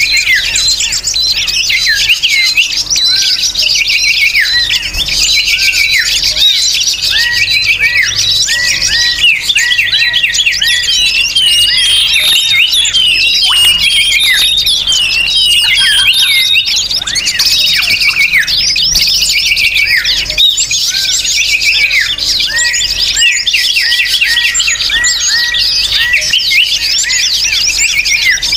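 Dense, noisy chorus of many small birds chirping and twittering all at once, with countless short overlapping notes and quick falling sweeps and no pause. This is a bird-lure (pikat) recording of small birds' chatter, played to call wild birds in.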